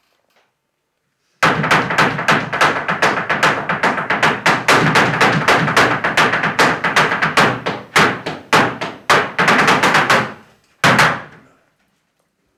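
A loud, rapid string of sharp cracks, about eight a second, starting suddenly and running for some nine seconds before fading, then one short second burst near the end.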